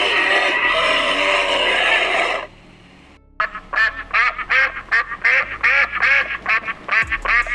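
Ducks quacking in a rapid, repeated series of short calls, starting a little under halfway through. Before it, a loud dense animal din runs for about two and a half seconds and then cuts off.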